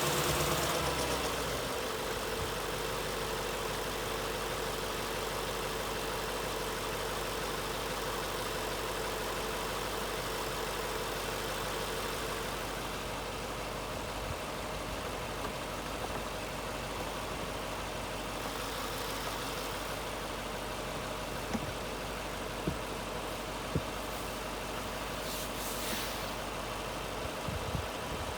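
Lexus LS460's 4.6-litre V8 idling steadily, with the new radiator fitted. Its level eases slightly a second or two in, then it holds steady.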